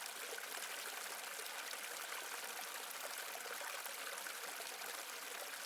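A pot of herbal kadha simmering on a gas stove: a faint, steady bubbling hiss.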